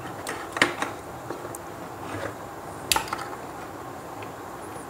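A few light clicks and taps as a wire is fastened under the terminal screw of a plastic two-way switch with a screwdriver, the sharpest click about three seconds in.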